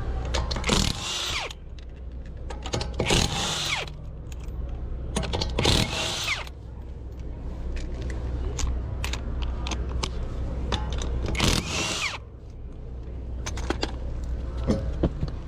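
A power tool run in four short bursts of about a second each, over a steady low engine hum, with light clicks and knocks between the bursts.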